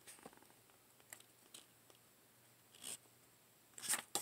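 Faint handling noises: a few soft clicks and rustles, with a louder brief rustle near the end.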